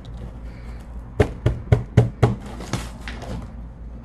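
A quick run of about six sharp knocks and thumps from a cardboard shipping box being handled and opened, starting about a second in and over within two seconds.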